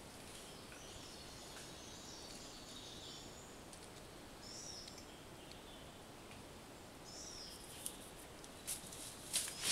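Rainforest ambience: a steady background hiss with birds calling in short, high chirps several times. Near the end a few sharp rustling clicks come in and grow louder.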